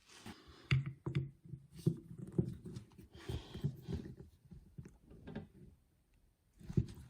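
A series of irregular small knocks and clunks with some scraping in between, from carburetor parts and tools being handled on a work surface during disassembly.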